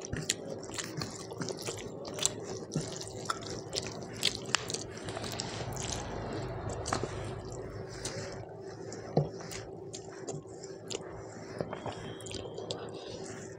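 Wet squishing of rice being mixed by hand with thin mutton curry, then close-up mouth sounds of chewing a large mouthful, with many small wet smacks and clicks. A steady low hum runs underneath.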